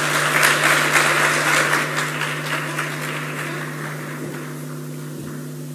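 Audience applause that is loudest at the start and dies away over about four seconds, over a steady low hum.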